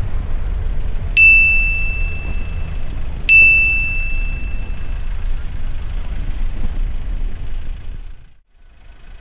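Steady low rumble of a moving train. Two clear bell dings sound about two seconds apart, each ringing on for a second or more. The rumble cuts out near the end.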